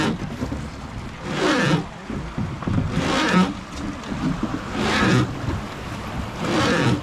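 Hand-rowed wooden Hozugawa river boat under way: water swishes and splashes in a steady rhythm, a surge about every one and a half to two seconds, in time with the oar strokes.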